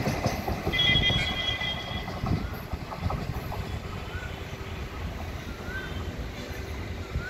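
Passenger train's coaches rumbling along the rails as the train pulls away, the sound fading. About a second in, a brief high steady tone sounds for about a second.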